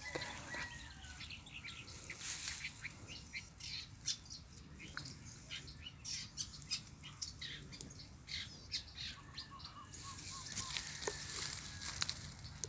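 Wild birds chirping and calling in short, scattered notes, with a quick run of short repeated notes about nine seconds in.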